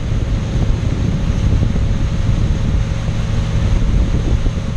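Wind rumbling on the microphone of a moving pontoon boat, over the steady running of the boat's motor and the rush of its wake.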